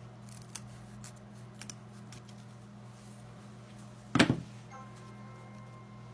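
Scissors snipping ribbon, a few light clicks, then a single loud knock about four seconds in.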